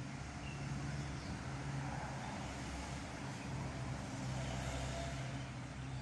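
Steady background rumble of road traffic, with a low, even engine hum running through it.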